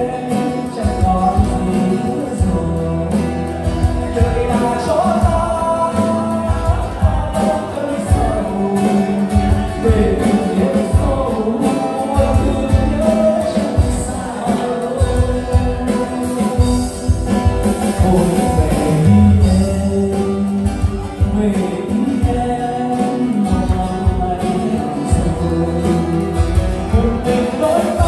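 A live band playing through a PA: guitars and a singing voice over a steady beat.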